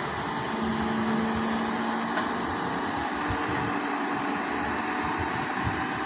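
Hyundai crawler excavator's diesel engine running steadily as the machine digs, its note shifting a little with the hydraulic load, with wind buffeting the microphone.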